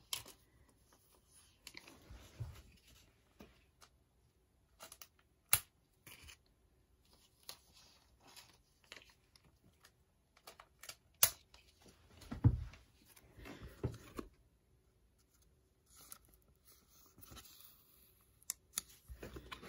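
Trading cards being handled and sleeved: soft sliding and rustling of card and plastic, with a few sharp clicks.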